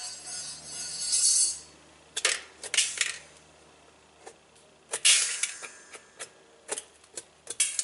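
Sharp knocks and clattering of hard plastic as a stuck washing machine washplate is broken off the transmission shaft it has fused onto. There are two longer rattling crashes, one at the start and one about five seconds in, and single cracks and knocks between them.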